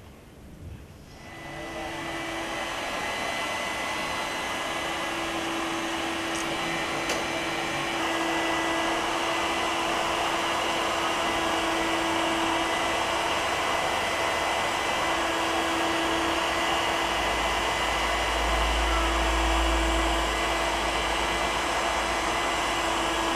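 Pet grooming blow dryer switching on about a second in and building to a steady whir of rushing air and motor hum. A deeper rumble joins for a few seconds late on.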